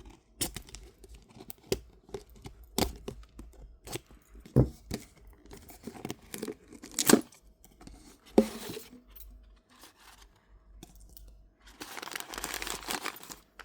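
Toy packaging being torn open and handled: scattered sharp snaps and rustles, then a longer tearing stretch near the end.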